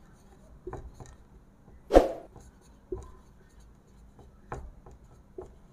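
Marker pen writing on a whiteboard: a string of short, quiet strokes and taps, with one sharper tap about two seconds in.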